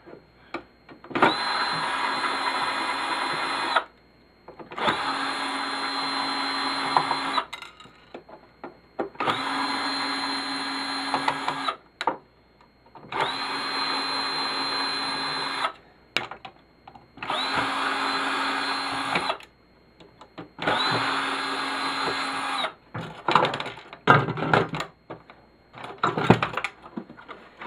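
Power drill running in six bursts of two to three seconds each, with short pauses between, then a few clattering knocks near the end.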